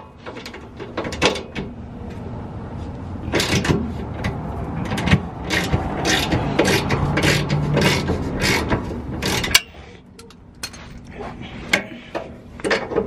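Ratchet wrench and socket clicking and clanking on the rear camber adjustment bolt of a Honda S2000 as it is loosened and turned. The clicks come fast and thick from about three seconds in, then thin out to a few scattered ones after about nine and a half seconds.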